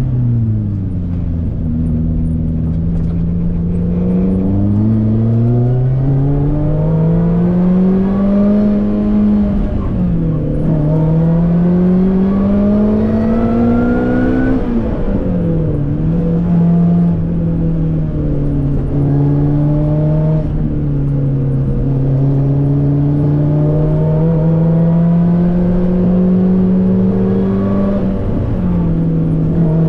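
Lotus Elise's engine heard from inside its cabin while driving. The pitch climbs under acceleration and drops at gear changes about 10 and 15 seconds in, then holds steady at a light cruise with one more brief dip near the end.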